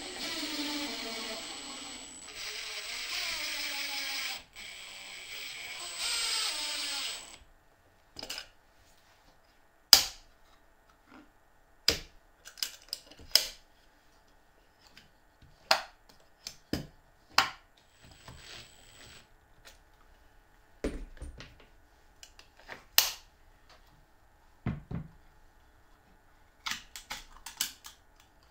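Cordless screwdriver driving a screw through a steel toggle latch into plywood in four short runs, the motor's pitch dropping as the screw tightens. Then a scattered series of sharp clicks and light knocks as the metal latch is worked and snapped by hand.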